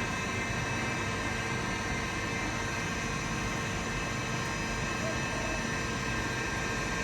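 Hamai 3VS CNC milling machine running steadily: an even mechanical noise with several constant whining tones, no change in pitch or level.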